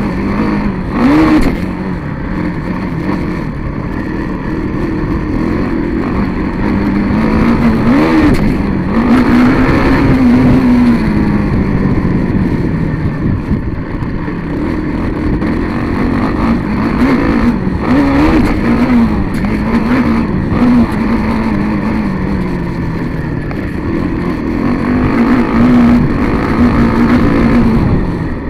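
A vehicle engine running loudly at a fairly steady pitch, rising in short revs several times and easing off, over a rough rumble.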